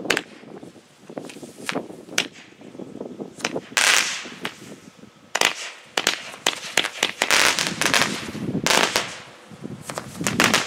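Fireworks going off: an irregular string of sharp pops and cracks, with denser hissing, crackling stretches about four seconds in and again around seven to nine seconds.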